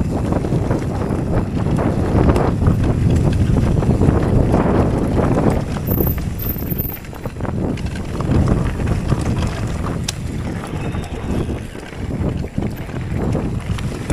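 Wind buffeting the action-camera microphone over the rumble of a Focus Jam2 e-mountain bike's tyres rolling down a dirt forest trail, with irregular knocks and rattles as the bike bumps over the rough ground.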